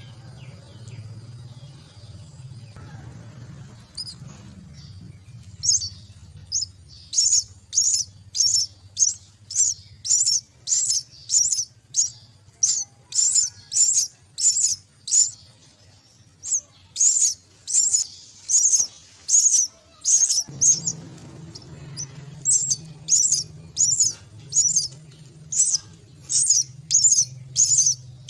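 Myna chicks giving a long run of short, high-pitched, harsh begging calls, about two a second, starting a few seconds in.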